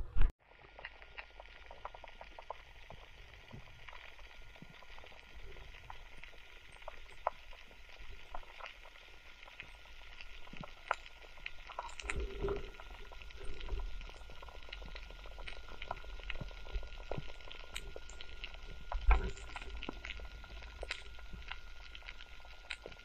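Underwater reef crackle: a steady bed of many faint clicks and pops, typical of snapping shrimp, with two short low thumps, one around the middle and one later on.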